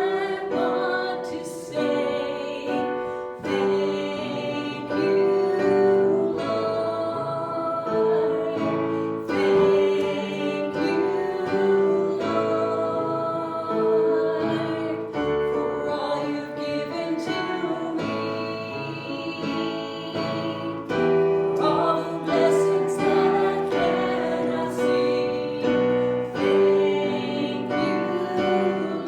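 Worship song in a church service: voices singing a slow melody in long held notes over piano accompaniment.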